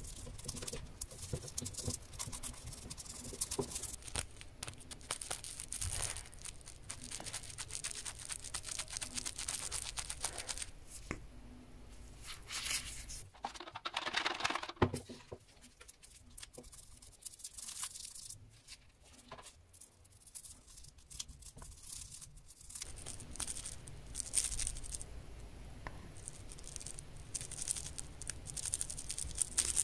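Small plastic brush scrubbing a resin watch case in soapy water: a continuous run of fine, wet, scratchy bristle strokes. About halfway through there is a louder swishing as the brush is worked around in the bowl.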